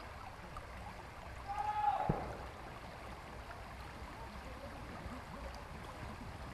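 Shallow creek water flowing steadily over stones. About two seconds in, a short pitched sound that dips at its end stands out, ending in a knock.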